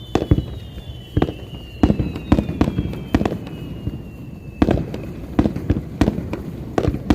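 Aerial fireworks bursting in quick, irregular succession, with about a dozen sharp bangs. Through the first part, several high whistles glide slowly downward together and fade out a little before the last bangs.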